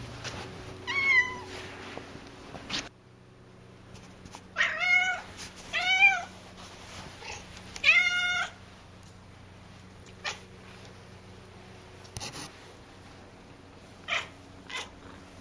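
Domestic cat meowing loudly four times: one meow about a second in, then three more between about four and a half and eight and a half seconds, each a drawn-out call that rises and falls in pitch. A few short taps follow near the end.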